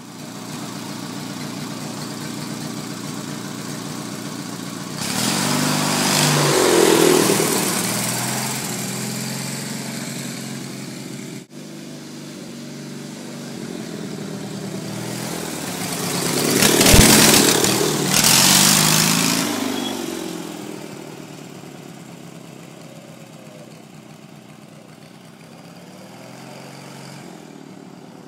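Go-kart's 18 hp Briggs & Stratton engine running, its pitch rising and falling as the kart is driven. It swells louder twice, as if passing close by, about a fifth of the way in and again just past halfway, then fades to a fainter drone.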